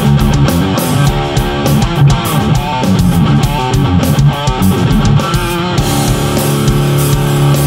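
Electric guitar rock music: a rhythmic riff with regular drum hits, settling about six seconds in into a held, ringing chord.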